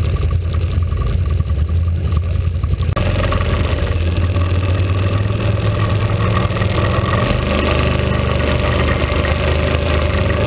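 ATV engine idling with a steady low hum; after a cut about three seconds in, an ATV engine runs under way across snowy ground, fuller and noisier.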